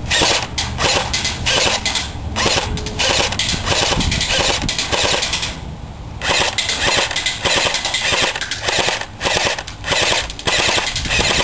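Airsoft AK-47S rifle firing long full-auto bursts, with a short pause about halfway through and brief breaks between bursts near the end.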